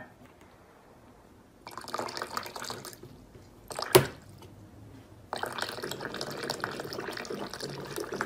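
Water spurting from a water dispenser's push tap into its plastic drip tray as a cat presses the tap lever: a burst of splashing about two seconds in, a sharp click near the middle, then water running steadily through the second half.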